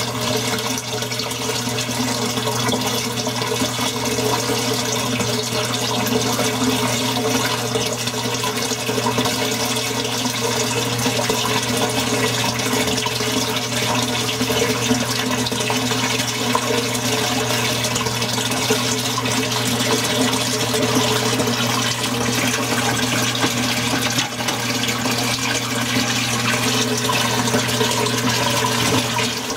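Aquarium filter running: a steady rush of circulating water over a low, even hum.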